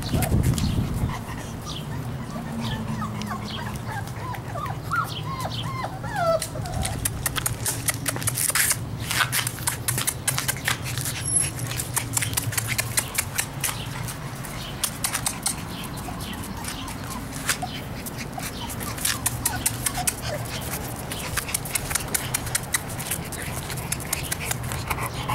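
Young bullmastiff puppies giving short, high whines in the first several seconds, followed by a long run of small sharp clicks and ticks as the litter moves about.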